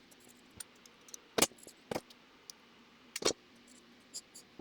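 Scattered light clicks and knocks of small objects being handled while the lampshade is measured, with two louder knocks about a second and a half and three seconds in.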